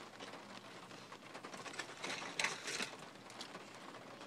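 Faint crackles and clicks of someone eating fried chicken and handling the food and its packaging, with a short cluster of louder crackles about two and a half seconds in.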